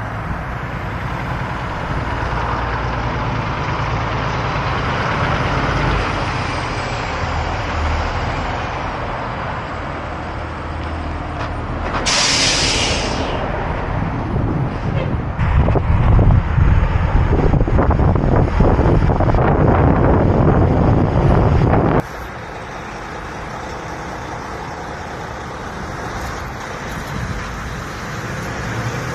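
Diesel engine of a Kenworth W900 heavy rotator tow truck running, with a sharp air-brake hiss about twelve seconds in, after which the engine runs louder for several seconds. Near the end the sound drops abruptly to the truck running more quietly at a distance.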